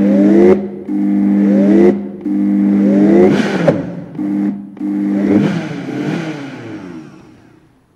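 Oster Versa 1400-watt blender motor pulsed in about five short bursts, kneading a flour-and-hot-water dough in the jar; the pitch shifts near the end of each burst, and the last burst winds down over about two seconds.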